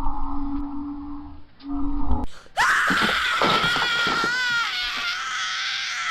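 A long, very high-pitched scream with a wavering pitch, starting about two and a half seconds in and held for about three and a half seconds, after a lower steady humming tone.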